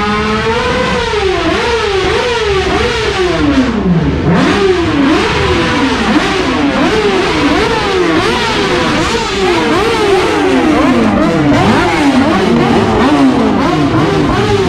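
Several motorcycle engines being revved over and over at close range, with overlapping throttle blips that rise and fall in pitch every half second or so as the bikes ride slowly past in a line.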